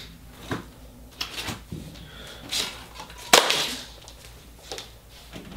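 A string of irregular light knocks and clatters from things being handled and moved, with one sharp, louder knock about three and a half seconds in.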